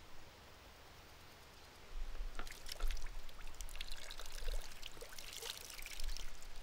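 Water trickling and splattering from a wall-hung plastic push-spout hand washer onto cupped hands, starting about two seconds in.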